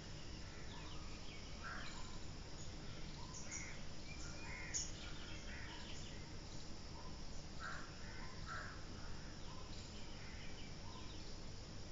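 Crows cawing now and then among other short bird calls, over a steady low background noise.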